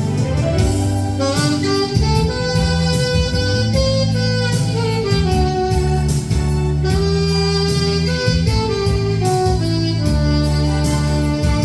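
A 1965 Buescher 400 saxophone playing a melody with long held notes over a backing track of bass and drums.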